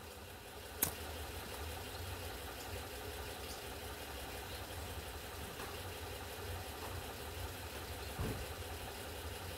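A pocket lighter clicks once about a second in, then a faint steady low hum with light hiss runs on while the flame is held to a snowball; a soft knock comes near the end.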